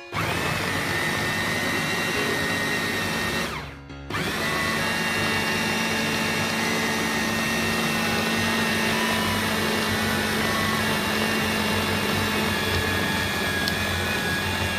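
700 W electric food chopper motor with its chopper bowl full of chunks of meat, running with a steady whine. It winds down and stops about four seconds in, then starts again a moment later and runs on steadily as the meat is minced.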